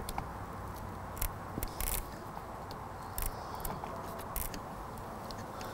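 Faint, scattered clicks and scrapes of small parts being handled: wire spade connectors being fitted onto the clutch lever switch terminals. The clicks are short, come a few seconds apart, and sit over a low steady room hum.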